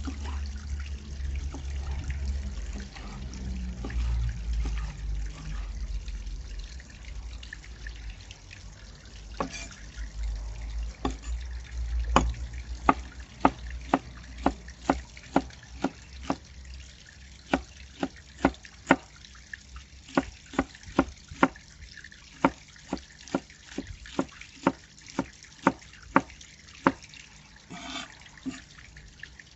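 A cleaver chopping red bell pepper on a wooden cutting board: a few scattered cuts, then from about halfway a steady run of sharp knocks, roughly two a second. Water trickles steadily behind.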